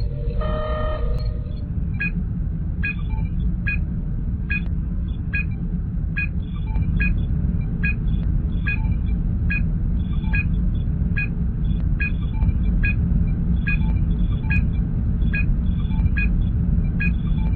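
Star Trek starship bridge ambience sound effect: a steady low rumble of the ship with a running series of short, high computer beeps and chirps, about one to two a second. A short chord-like tone sounds in the first second, before the beeps start.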